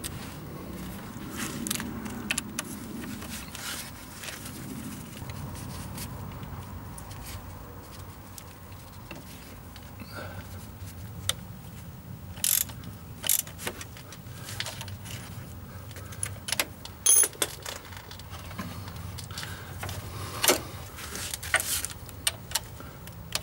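Metal hand tools clinking and clicking at the auxiliary belt's eccentric tensioner roller as a tensioning lever and then a ratchet with a hex bit are fitted and worked. Scattered sharp metallic clicks, louder and more frequent in the second half.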